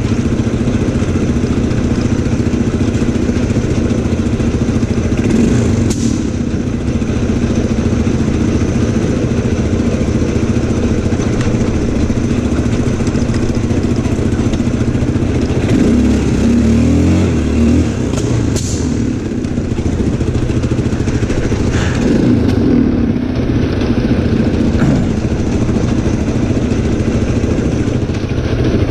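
ATV engine running steadily while riding over a rough dirt track, its note wavering briefly about halfway through as the revs change. A couple of short clicks are heard over the engine.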